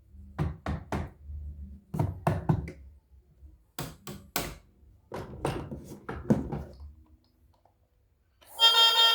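Sharp knocks in quick runs of about three, repeated several times with short pauses between, then music starts near the end.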